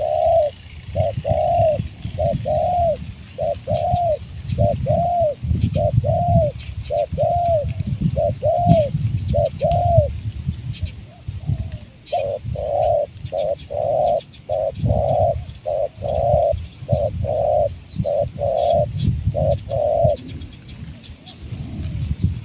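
Spotted dove cooing in fast runs of short, arched notes: one run of about ten seconds, a brief pause, then another of about eight seconds, over a low rumble.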